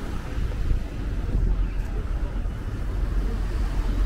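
City street ambience: traffic noise with a steady low rumble and no distinct events.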